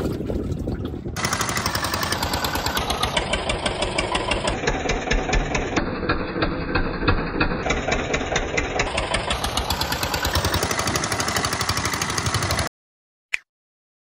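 Wind and water for about a second, then a small wooden fishing boat's engine running under way with a fast, even chugging, water rushing along the hull. It cuts off abruptly near the end, followed by a single short ping.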